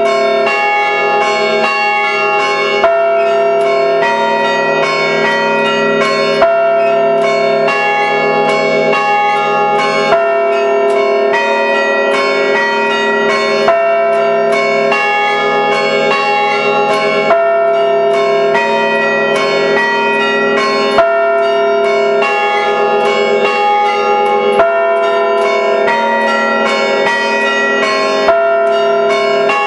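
A five-bell church-tower chime played by hand through rope pulls, the bells struck in a quick, repeating rhythmic pattern and ringing on into one another. A louder stroke comes about every three and a half seconds.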